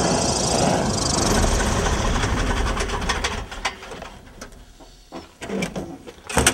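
Small two-seat bush plane's engine and propeller running as it taxis on a gravel bar; about three and a half seconds in the engine noise falls away, leaving scattered clicks and knocks.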